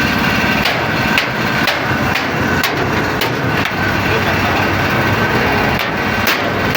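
Sharp, even knocks about twice a second, pausing for a couple of seconds in the middle, over the steady running of a machine during roadside tyre work.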